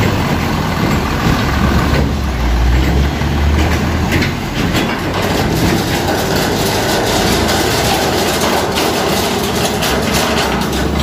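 Heavy diesel trucks passing close by: a low engine rumble with loud road and tyre noise, and a run of sharp knocks in the middle.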